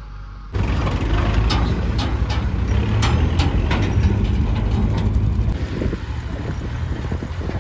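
Diesel engines of a farm tractor towing a trailer and a JCB 3DX backhoe loader running close by: a steady low rumble with repeated sharp clanks. It starts abruptly about half a second in.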